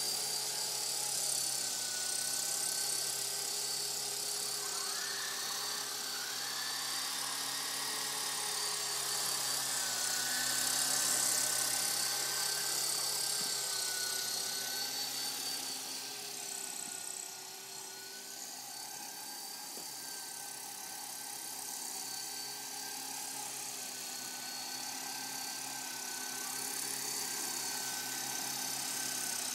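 Walkera Lama 3 electric coaxial RC micro helicopter in flight: its motors and rotors whine steadily, the pitch wavering slightly. The sound drops a little about halfway through and grows louder again near the end.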